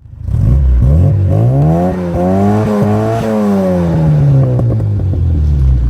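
A car engine running under load, its pitch climbing over the first two seconds with small dips along the way, then falling slowly as it eases off, and cutting out near the end.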